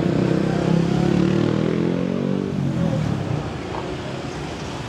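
A motor vehicle's engine passing close by, its note dropping slightly and fading about three seconds in.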